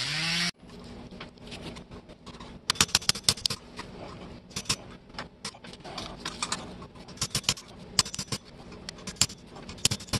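Small hammer tapping on the metal disc roller of an antique cast-iron label paster: many light, sharp metal taps and clicks, often in quick clusters of a few. For the first half-second a rotary tool is running, then it cuts off abruptly.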